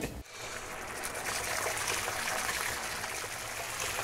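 Liquid splashing and pouring, heard as a steady rushing wash that starts a moment in.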